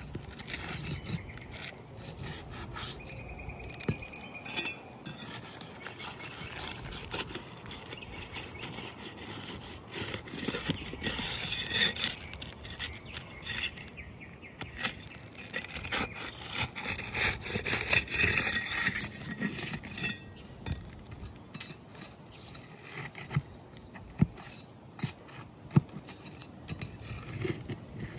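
A flat pry bar scraping and rubbing under 3-tab asphalt shingles as they are worked loose, in uneven stretches, with a few sharp knocks near the end.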